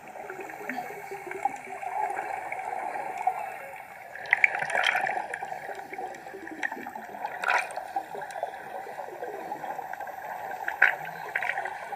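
Water heard through a submerged camera: a steady muffled sloshing and gurgling, with short bubbly bursts about four and a half, seven and a half and eleven seconds in.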